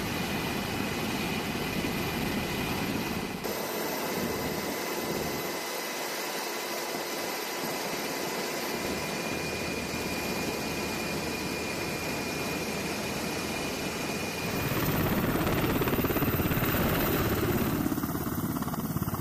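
UH-60 Black Hawk helicopter running, a steady turbine whine over rotor noise. About fifteen seconds in it grows louder and deeper, as the helicopter comes overhead for a sling-load hookup.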